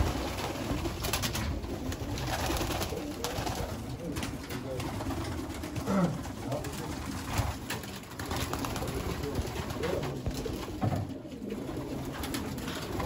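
A loft full of racing pigeons cooing, with scattered short flutters and clatters of wings among the calls.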